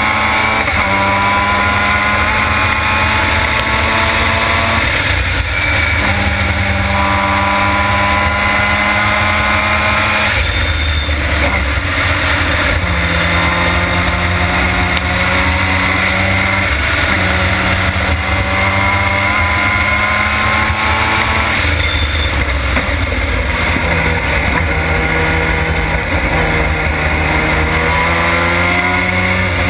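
Formula Mazda race car's two-rotor Mazda rotary engine at racing speed, heard on board. Its note climbs through the revs and steps at a series of gear changes: upshifts on the straights and downshifts into a corner near the middle. Wind noise runs underneath.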